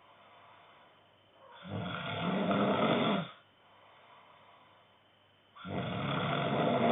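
A man snoring in his sleep: two long snores about four seconds apart, each lasting about a second and a half, with quiet between them.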